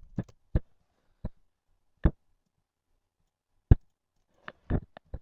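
Computer mouse clicking: single sharp clicks spaced out by about a second, then a quicker run of clicks near the end.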